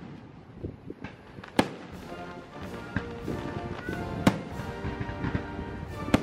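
Aerial firework shells bursting with sharp bangs, loudest about a second and a half in, again past four seconds and once more near the end, with a few fainter pops between, over band music with held tones.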